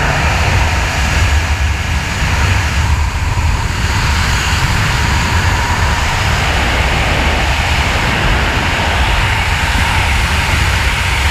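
Freefall wind rushing over a skydiver's camera: a loud, steady roar of air, heaviest in the low end.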